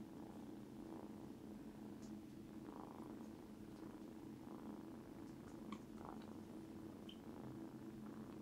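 A British Shorthair cat purring faintly and steadily.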